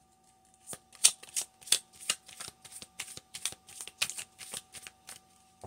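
Tarot cards being shuffled by hand: a run of quick, papery card slaps and rustles, several a second, starting about a second in.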